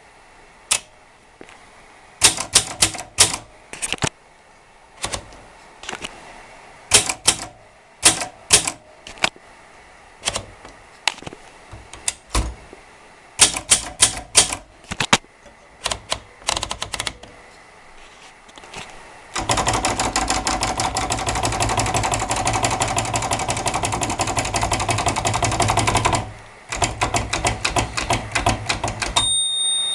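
Imperial Model 22 portable manual typewriter being typed on: keys struck one at a time at first, then a fast, continuous run of typing from about two-thirds in, with a brief ringing tone near the end.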